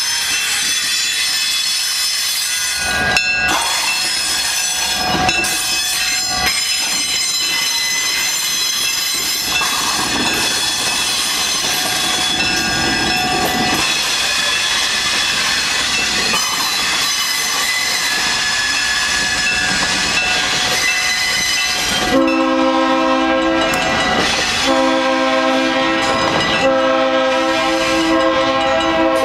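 Freight train of flatcars loaded with railroad ties rolling past, the wheels squealing with clacks over the rail joints. About three-quarters of the way through, the diesel locomotive's horn starts blowing, a long steady chord with two short breaks.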